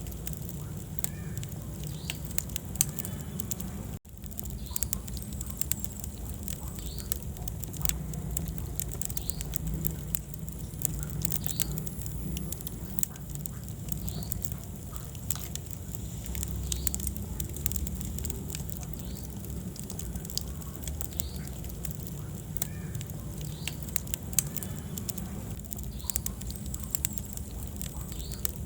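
Wood fire burning in a fireplace: frequent sharp crackles and pops over a steady low rumble of the flames. The sound cuts out for an instant about four seconds in.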